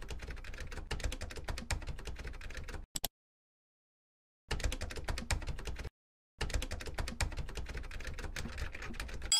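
Typing sound effect: rapid clicking of keyboard keys, in three runs broken by dead silence, a gap of about a second and a half a third of the way in and a shorter one just past halfway.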